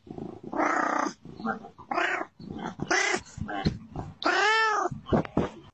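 A domestic cat meowing repeatedly, about five calls, the last a long meow near the end that rises and then falls in pitch.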